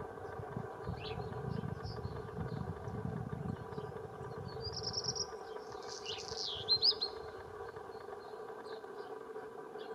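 Outdoor birdsong: a songbird sings a short phrase of high whistles and sliding notes about five to seven seconds in, over faint scattered chirps. Underneath is a steady low hum, with a low rumble in the first half.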